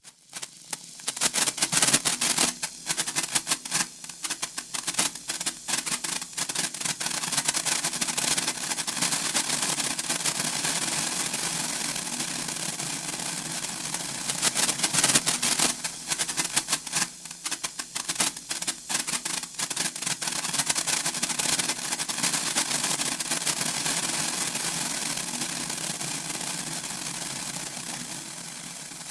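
Senko hanabi (Japanese hand-held incense-stick sparkler) burning: a dense, fast crackle of tiny popping sparks over a fizzing hiss. The crackle surges in stronger bursts and thins out, getting softer near the end.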